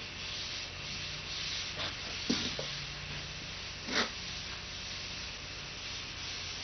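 Tack cloth wiping over a primed car door panel: a soft, even rubbing, with two brief louder strokes about two and four seconds in.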